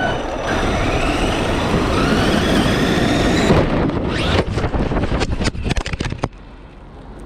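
Traxxas E-Revo RC truck's electric motor whining up in pitch over the rush of tyres on gravel as it accelerates, heard from a camera mounted on the truck. About three and a half seconds in it breaks into a quick run of knocks and clatters as the truck crashes and tumbles. This stops suddenly just after six seconds.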